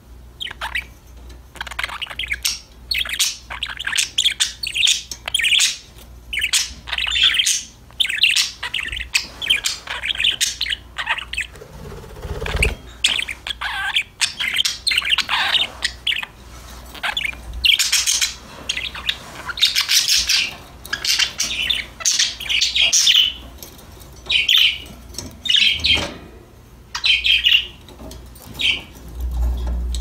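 Pet budgerigars chirping in quick, dense bouts of high chirps with short pauses between.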